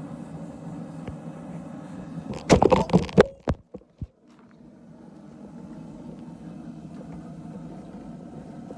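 Steady low hum with a short burst of loud knocks and clatter about two and a half seconds in.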